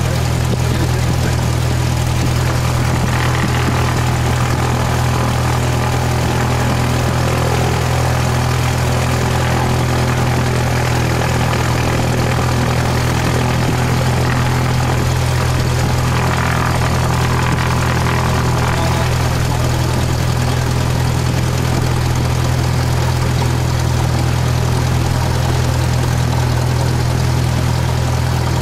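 Cessna 172's piston engine and propeller running steadily, heard from inside the cabin.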